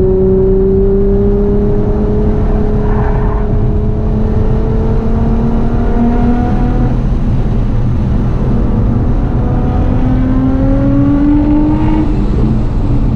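Nissan GT-R R35's twin-turbo V6, breathing through a full HKS exhaust, running hard under sustained load. Its pitch climbs slowly through a gear, eases once partway through and climbs again, then drops near the end.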